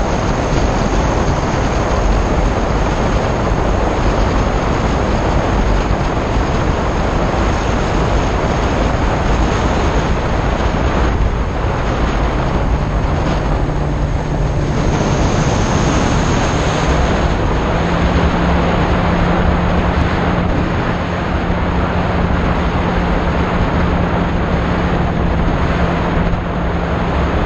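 E-flite Opterra flying wing in flight, heard from its onboard camera: a steady rush of air over the microphone mixed with its brushless electric motor and propeller running. A low steady hum comes in about halfway and steps up a little a few seconds later.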